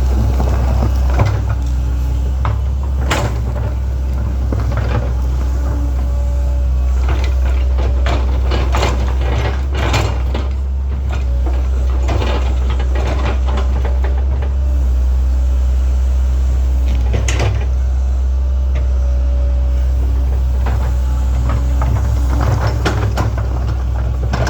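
Link-Belt 2700 excavator's diesel engine running steadily at working revs, with scattered clanks and scrapes of the bucket and machine as it digs.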